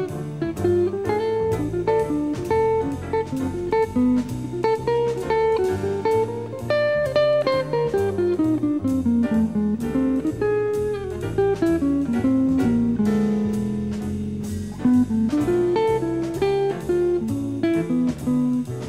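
Background music: a plucked guitar playing a quick melodic line over a bass line.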